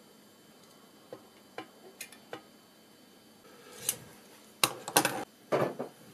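Small tools and parts handled on a wooden workbench: a few light clicks and taps, then a cluster of louder knocks and rustling in the second half.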